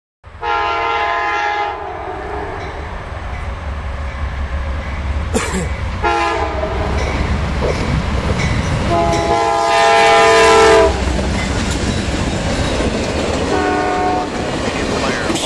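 A fast-approaching Amtrak passenger train sounds its diesel locomotive's multi-chime horn for a grade crossing, four blasts over the train's steady rumble. The third blast is the longest and loudest. Near the end the coaches roll past with clattering wheels.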